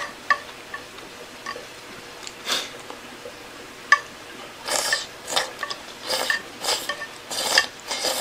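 Utensils clicking and scraping on a pan or plate. Scattered light clicks come over the first few seconds, then a run of short scraping strokes about twice a second.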